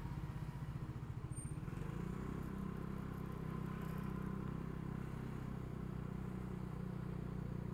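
Lexmoto Aura 125cc scooter's engine running at low road speed, with a low pulsing note that steadies and firms up about two seconds in.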